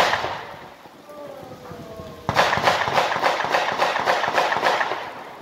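Fireworks: one sharp bang that dies away, then about two seconds later a loud, dense run of rapid crackling pops lasting about two and a half seconds.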